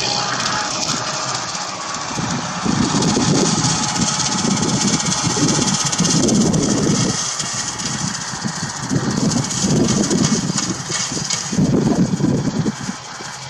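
Tractor engine running steadily, its low note swelling and fading several times as the load changes, over a constant hiss.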